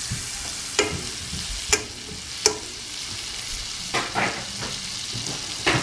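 Butter melting and sizzling in a hot nonstick frying pan: a steady frying hiss, broken by a few sharp pops every second or so.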